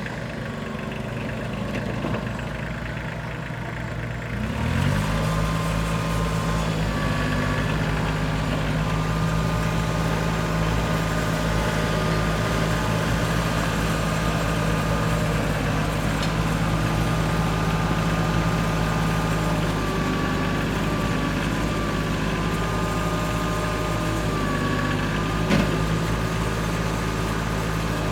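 Bobcat CT225 compact tractor's engine idling, then revving up about five seconds in and running steadily at the higher speed, with a thin whine that wavers a little in pitch. A single short knock comes near the end.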